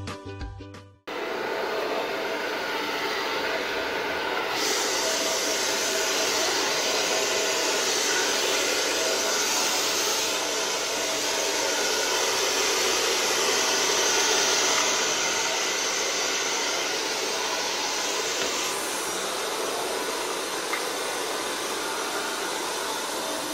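Hand-held hair dryer blowing steadily on a customer's hair, a rushing hiss over a faint motor hum. The hiss turns brighter about four seconds in and duller again near the end. Background music cuts off about a second in, just before the dryer starts.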